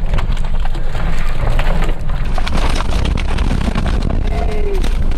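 Tornado winds buffeting a vehicle: a heavy, constant low rumble, with a dense, rapid clatter of rain and debris striking the body and windows.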